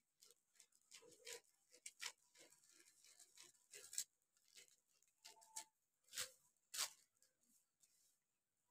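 Thin kite paper crinkling and rustling as it is handled and cut with scissors: a scattered run of soft crackles and snips, the loudest about four seconds in and twice more between six and seven seconds.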